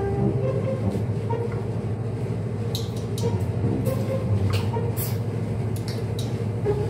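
A steady low hum of room noise, with scattered sharp clicks and ticks between about three and five seconds in as cola is poured from a plastic bottle into a glass.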